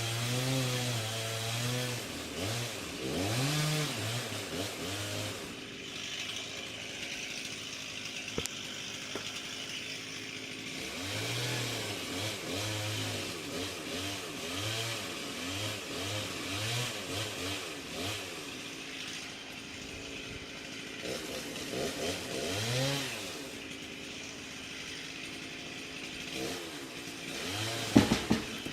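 Chainsaw engine running, revving up and dropping back over and over. A few sharp knocks near the end.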